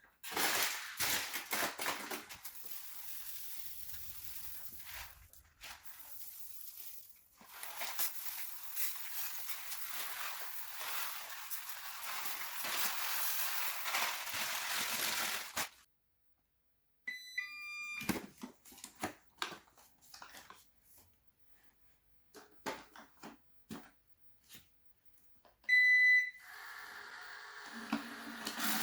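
Dry rice being poured and scattered across a hard floor, a long hissing rattle lasting about a quarter of a minute. Then a short run of electronic beeps at stepped pitches, and a loud single beep near the end as the Onson F007C robot vacuum starts up, its motor and brushes beginning a steady hum.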